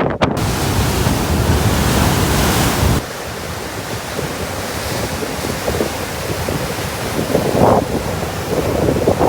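Sea waves surging and breaking on the shore, with wind rushing over the microphone. The sound drops abruptly about three seconds in to quieter surf, and swells of breaking water come near the end.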